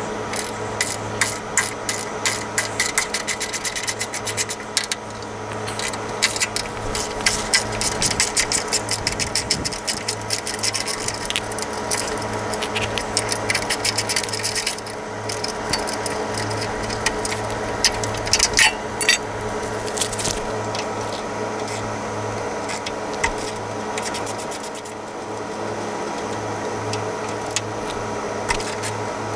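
Ratchet wrench clicking in rapid runs with short pauses between, as bolts are loosened and backed out of a vehicle's frame brackets.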